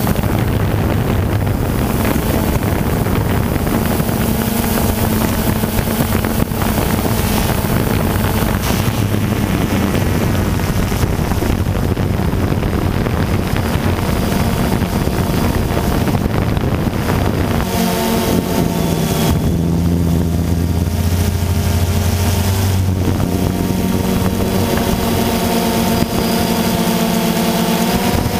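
DJI Phantom 2 quadcopter's four electric motors and propellers humming steadily, heard up close from the camera mounted on the drone, mixed with wind noise on the microphone. The pitch of the hum shifts a few times as the motors change speed, most noticeably about two-thirds of the way through.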